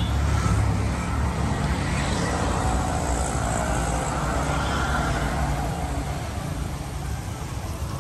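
Steady low rumble of road traffic and car engines.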